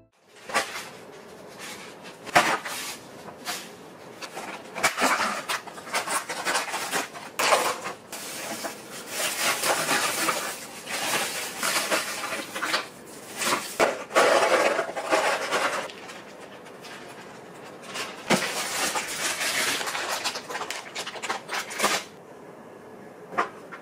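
Plastic packaging and disposable plastic gloves crinkling and rustling while raw pork is handled in a plastic tray, with scattered sharp clicks and knocks on the countertop.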